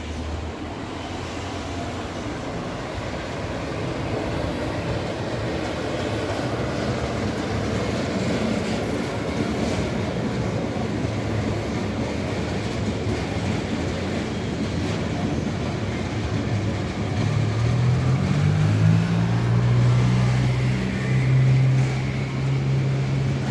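A freight train of Eas open wagons loaded with coal rolls past behind a Siemens Vectron locomotive, the rolling noise growing gradually louder. In the last few seconds a low hum rises in pitch and then holds steady.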